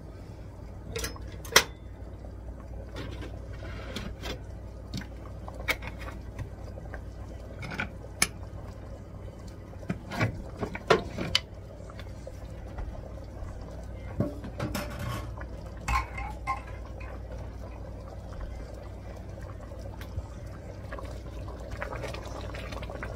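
Thick, creamy soup being stirred in an enamelled Dutch oven, first with a whisk and later with a wooden spoon: a soft sloshing of liquid, broken by scattered clinks and taps of the utensil against the pot.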